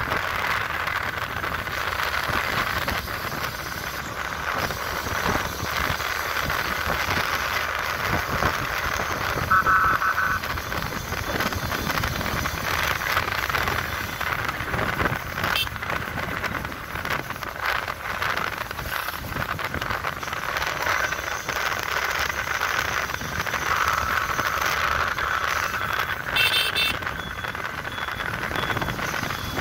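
Motorcycle on the move at night: a steady rush of engine, road and wind noise. A few short high beeps come near the end.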